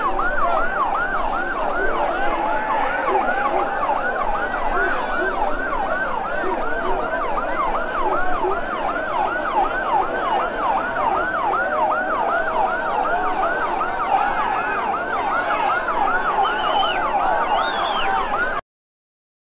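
Fire truck siren in a fast yelp, its pitch sweeping up and down about three times a second without a break, until it cuts off suddenly near the end.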